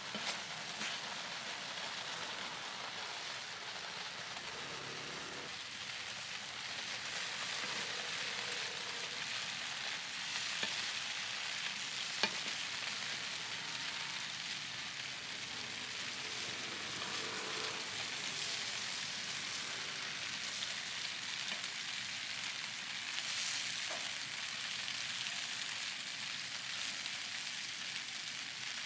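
Pork buns steam-frying in a wide iron pan: water and oil sizzling around them in a steady hiss, with a single sharp click partway through.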